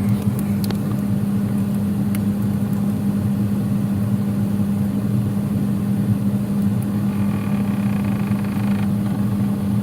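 Freezer making a loud, steady, rough droning hum that sounds like snoring, with a few light clicks in the first couple of seconds.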